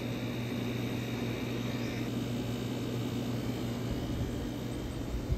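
Steady low mechanical hum with a faint high whine above it, unchanging throughout, with a little low rumble added near the end.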